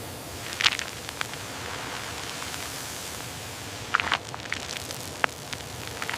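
Steady hiss with scattered crackles and a few sharp clicks.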